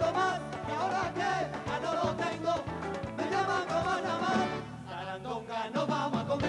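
A live rumba band playing: voices singing over Spanish acoustic guitar, electric guitar and drums, with a short gap in the singing about five seconds in.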